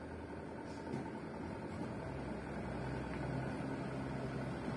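Diesel engines of two heavy trucks approaching on a sandy dirt road: a low, steady engine hum that grows slowly louder as they come closer.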